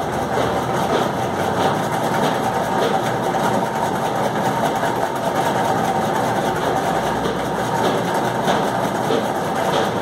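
Pencil scratching on paper in short, repeated hatching strokes, over a steady mechanical hum.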